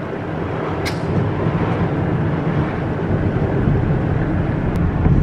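Steady road and engine noise of a moving car, with a short click about a second in and another near the end.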